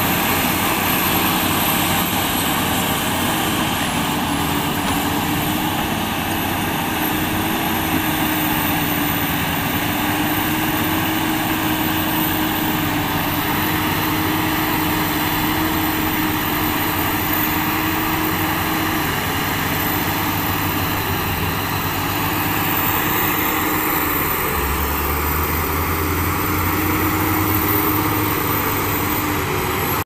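Crawler bulldozers' diesel engines running steadily as the machines work.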